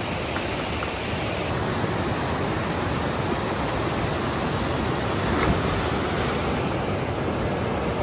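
Rushing water with a steady, even rush that does not let up.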